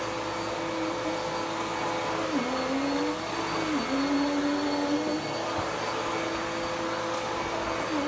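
Dirt Devil Power Max Pet (UD70167) bagless upright vacuum cleaner running on carpet: a steady motor hum and hiss, its pitch dipping briefly three times.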